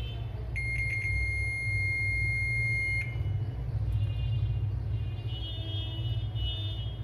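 A digital multimeter's continuity buzzer gives a few short chirps and then a steady high beep for about two and a half seconds, as its probes touch a point on a laptop motherboard. The beep signals a low-resistance path, the sign tested for when hunting a short on a dead board. A steady low hum sits underneath.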